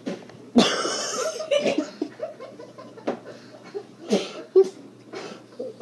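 A boy coughing and sputtering out a mouthful of dry unsweetened cocoa powder: one big puffing cough about half a second in, then several shorter coughs, mixed with laughter.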